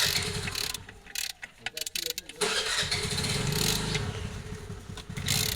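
A vehicle engine running, getting louder and steadier about two and a half seconds in.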